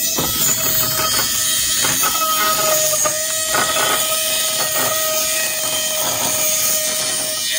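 Battery-powered micro drilling pen for phone CPU grinding running freely with a steady high whine and hiss, and a few light knocks as it lies on the bench.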